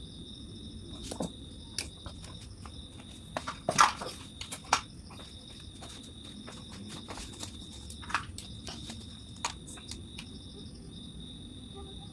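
Scattered clicks and knocks of a motorcycle stator and its wires being handled and set down on a hard floor, the loudest about four seconds in. Behind it, a steady high-pitched insect chirring.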